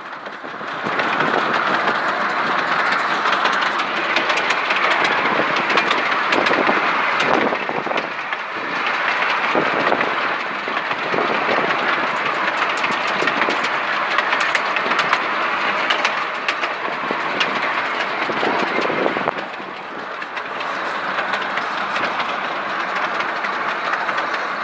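Miniature railway passenger wagons running along the narrow-gauge track, heard from a seat aboard: a steady rattling rumble with the clickety-clack of the wheels over the rail joints.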